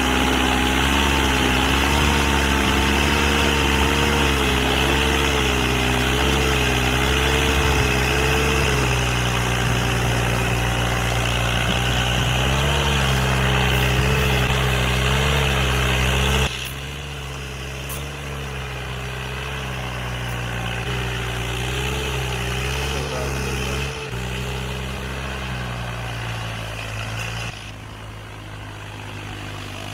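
Tractor diesel engine labouring under heavy load while dragging a disc harrow, its pitch wavering up and down. It drops to a quieter level about halfway through and again near the end.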